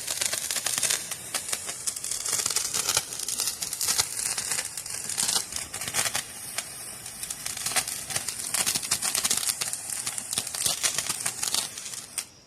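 Handheld firework spraying sparks with a steady hiss and dense crackling, cutting off suddenly near the end as it burns out.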